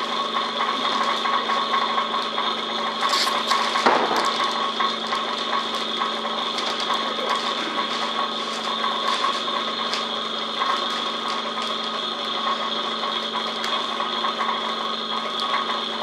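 Vacuum pump running steadily, pulling a vacuum on a bagged composite wing layup, with scattered crackles of the plastic bag film as it is pressed down by hand and a louder rustle about four seconds in.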